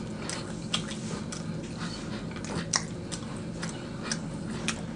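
Close-miked mouth sounds of a person chewing chicken wings: irregular small sharp clicks and wet smacks, over a faint steady low hum.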